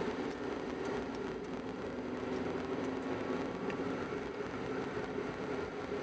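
Steady car engine and tyre noise heard from inside a moving car's cabin, a low, even hum.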